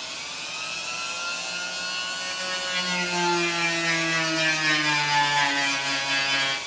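Handheld rotary tool with a sanding drum running at high speed and grinding into the steel of a motorcycle gas tank, its whine slowly dropping in pitch over a hiss of abrasion. It is sanding the rust out of a small deep pit before the spot is filled with glazing putty.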